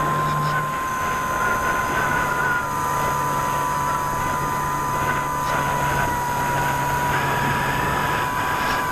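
Brushless electric motor and propeller of an E-flite Apprentice S 15e RC trainer plane in flight, heard from its onboard camera: a steady whine whose pitch sags slightly, with air rushing past.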